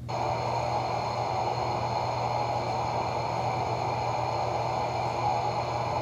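Steady test noise from a loudspeaker in a small wooden transmission-loss test box, heard through a 1/8-inch fiberglass panel. It is a hiss strongest in the middle range with fainter higher bands, and it switches on and off abruptly.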